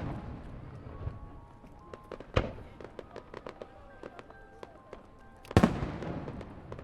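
Aerial fireworks shells bursting: two loud booms, about two and a half and five and a half seconds in, with a spell of small crackling pops between them. Music plays faintly underneath.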